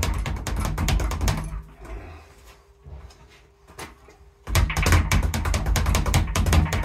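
Speed bag being punched in a fast, even rattle of knocks against a wooden rebound board. The rattle stops about a second and a half in, goes quiet for about three seconds, then starts up again.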